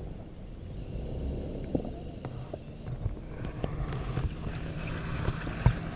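Muffled underwater sound picked up by a submerged camera: a continuous low rumble with scattered short clicks and knocks.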